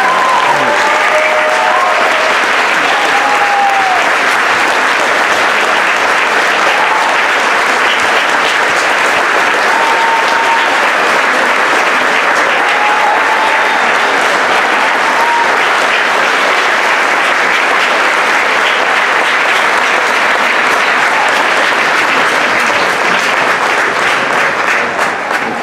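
Concert-hall audience applauding steadily, with a few voices calling out in the first seconds; the applause begins to die away near the end.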